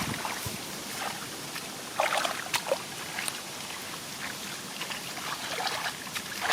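Shallow field water trickling and splashing as hands work through it, with a few sharper splashes about two seconds in.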